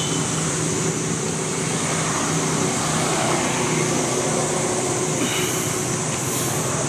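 Steady low mechanical drone, like an engine or passing traffic, under a constant high hiss, with a brief faint high-pitched call about five seconds in.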